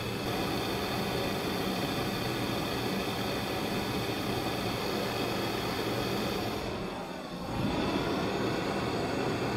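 Handheld gas torch burning with a steady rushing hiss, heating a small steel screw to red heat for hot bluing. About seven seconds in the sound dips briefly and changes as the torch is moved, then carries on.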